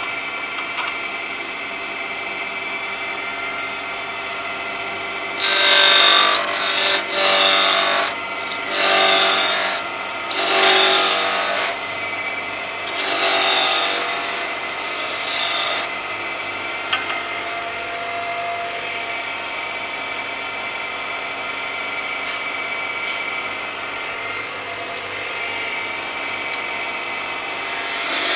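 Wood lathe running with a steady motor hum while a roughing-out gouge cuts into a spinning sapele block. The cutting comes in several loud bursts of one to three seconds between about five and sixteen seconds in, and again near the end.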